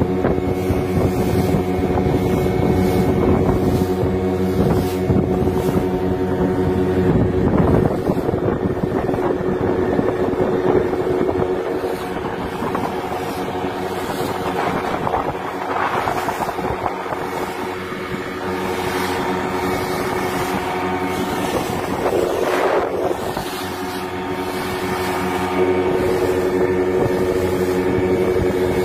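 Outboard motor of a small wooden boat running steadily under way, with water rushing past the hull and wind on the microphone.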